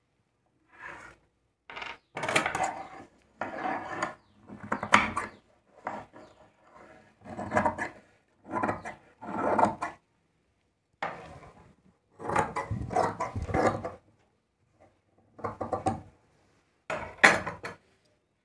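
Large tailor's shears cutting through several folded layers of dress cloth on a wooden table: about a dozen separate cutting strokes with short pauses between them.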